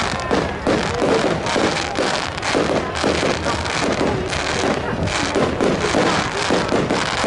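Fireworks going off in quick, irregular bangs and crackles, several reports a second with no let-up.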